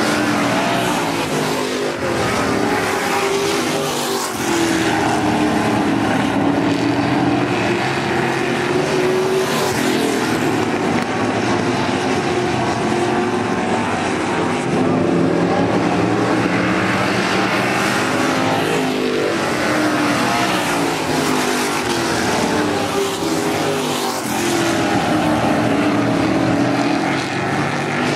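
Several V8 dirt-track stock cars racing together, their engines rising and falling in pitch as they rev up and back off around the track.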